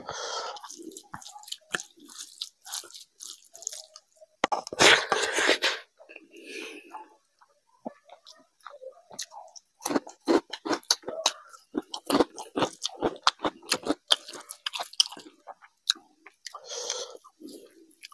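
Close-up eating sounds of a man eating rice and curry by hand: chewing and mouth smacks, with many short clicks and smacks of fingers working the rice. A louder rough burst comes about five seconds in.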